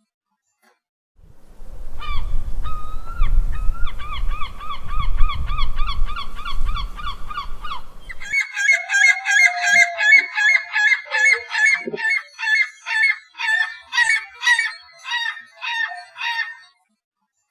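Seagulls calling in rapid repeated series of short, pitched squawks. First comes a fast run of calls over a low rumble of background noise; about eight seconds in, a second, higher-pitched set of calls takes over without the rumble, settling into separate squawks about two a second.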